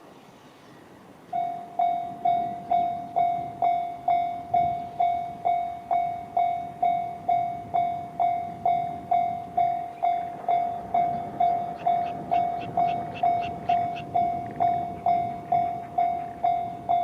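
Japanese level crossing's electronic warning sounder, the JR standard tone, switching on abruptly about a second in and ringing a steady, evenly repeated ding a little under twice a second, signalling that a train is approaching. Fainter high ticks join in about twelve seconds in.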